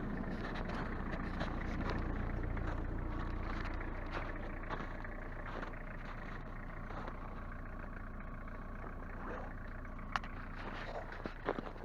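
Car engine running at low revs with a steady low rumble that eases off after about four seconds, then a few sharp knocks near the end.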